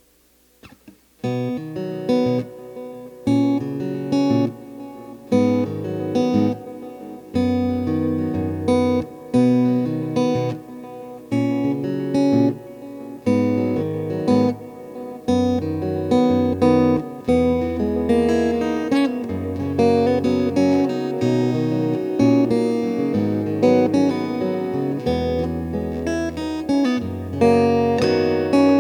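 Acoustic guitar, plugged in and run through a Wampler Ethereal reverb and delay pedal, strumming a chord progression. A new chord is struck every second or two, starting about a second in, and each one rings on.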